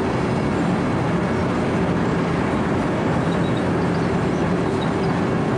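Wirtgen W 120 CFi cold milling machine running under load, its diesel engine and cutting drum grinding into freeway asphalt in a steady, loud, unbroken din.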